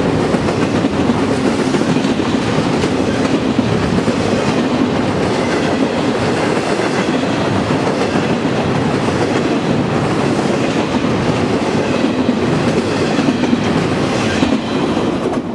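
A train's cars rolling past, a steady loud noise of steel wheels running on the rails.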